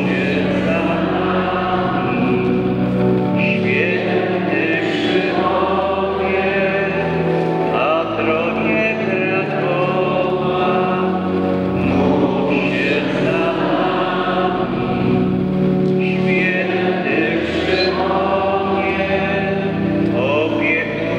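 Voices singing a slow hymn together in long, held notes.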